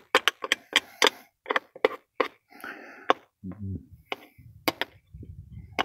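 A screwdriver tip scraping and picking packed sawdust and bar-oil crud out of a chainsaw's sprocket cover: a quick, irregular run of sharp clicks and scrapes.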